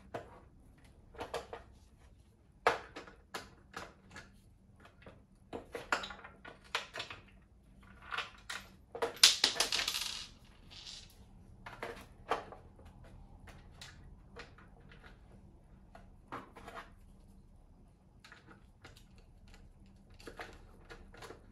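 Irregular clicks and knocks as wood screws are driven by hand through a plastic wall mount, with a denser scraping rattle of metal on plastic about nine seconds in.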